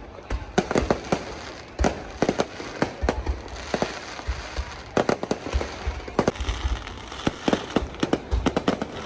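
Fireworks bursting overhead in quick, irregular succession: many sharp bangs, several a second, with a crackling fizz between them in the middle.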